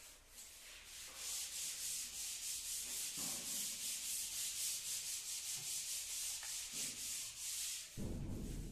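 Paint roller being worked back and forth over a wall, a rhythmic rasping hiss of quick repeated strokes. Near the end the strokes stop and a low rumble comes in.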